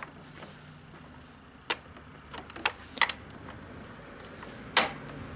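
A few separate sharp clicks and knocks of a chainsaw being handled and opened up for cleaning, the loudest near the end.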